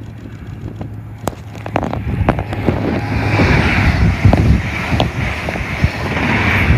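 A High Speed Train led by a yellow Network Rail Class 43 power car passes close by. Its sound builds over the first three seconds and stays loud as the power car and coaches rush past, with wind buffeting the microphone.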